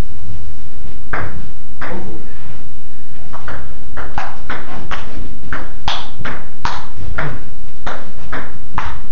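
Table tennis rally: the ping pong ball clicking back and forth off the paddles and the table, starting about a second in and going at two to three hits a second, over a steady low rumble.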